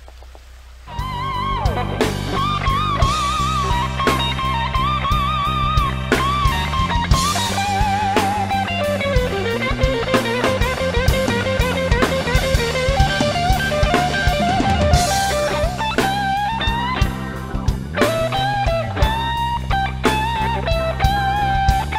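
Background rock music with an electric guitar playing a wavering lead melody over bass and a drum kit, starting suddenly about a second in.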